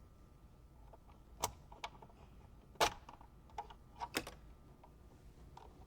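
Sharp plastic clicks and knocks, about half a dozen spread out, the two loudest about one and a half and three seconds in: the ashtray and console trim of a Mercedes W211 E-class being unclipped and handled by hand.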